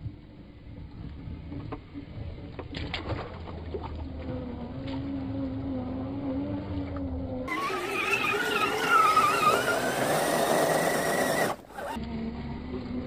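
Whine of a radio-controlled scale crawler's electric motor and gears as it drives through mud and water, the pitch wavering with the throttle. Partway through, a louder and higher whine takes over, then cuts off sharply before the lower whine returns near the end.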